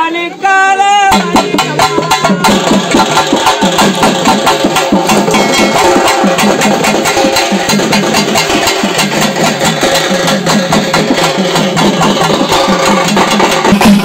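A group of festival drums played with sticks in a fast, dense, driving rhythm. It starts about a second in, after a brief voice.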